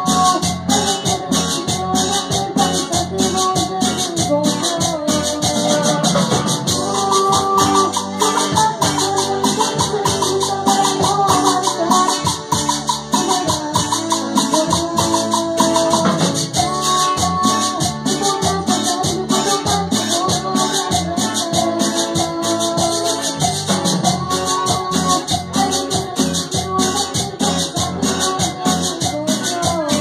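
Amplified singing by two vocalists on microphones over dance music with a steady, fast rattling shaker beat.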